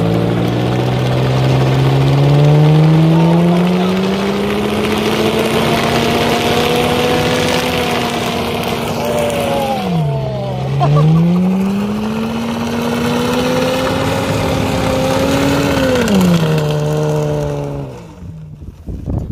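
Holden VZ Commodore's V6 held at high revs while a rear wheel spins on a shredded tyre on dirt, with a hiss of flung dirt and gravel over the engine. The revs climb over the first few seconds, dip and come straight back up about halfway through, then drop away near the end as the sound fades.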